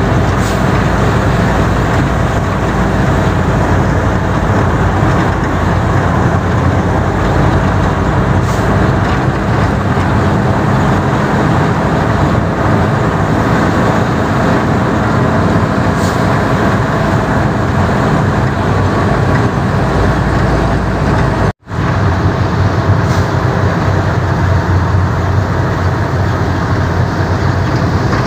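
Sugarcane truck's engine running steadily with loud road and rattle noise, heard from inside the cab. The sound cuts out for a split second about three-quarters of the way through.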